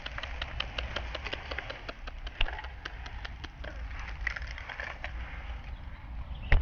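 Crushed dry bread and wheat grains poured from a bowl onto dry ground: many small irregular clicks and crackles as the crumbs and grains land, with one louder knock about two and a half seconds in.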